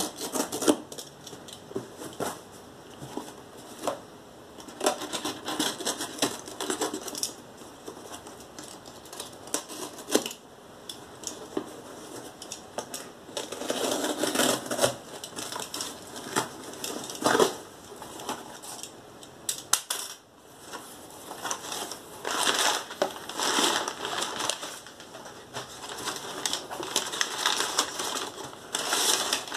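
Cardboard shipping box being opened by hand: packing tape peeled and torn off, with irregular scrapes and clicks against the cardboard. In the latter part, crumpled kraft packing paper inside the box is rustled and crinkled as it is pulled out.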